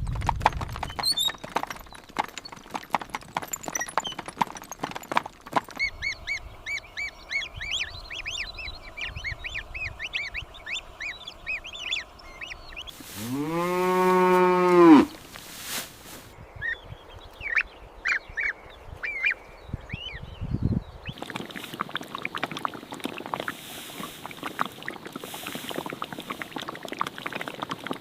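A cow moos once, one long call that rises and then falls in pitch, about halfway through; it is the loudest sound. Before it come knocks and clopping and then rapid high chirps; after it, more chirps and then a steady rough rustle.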